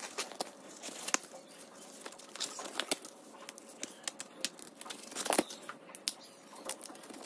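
Green husk leaves being peeled and torn off an ear of fresh sweet corn by hand: a run of crisp crackling and rustling tears.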